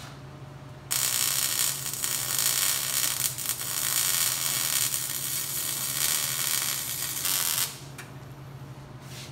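MIG wire-feed welder arc crackling steadily as a second pass is run over a steel C gusset on a forged Dana 30 axle C. The arc strikes about a second in and cuts off near the eight-second mark, over a steady low hum.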